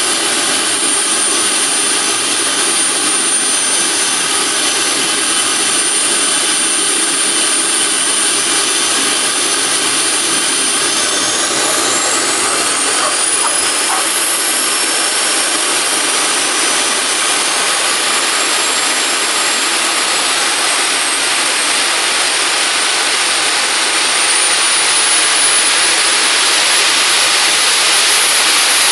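Small AMT model gas turbine jet engine (about 45 lb thrust) running on a test bench: a steady loud roar with a high whine on top. About eleven seconds in the whine rises in pitch as the engine spools up, then climbs again through the last third, the roar growing a little louder near the end.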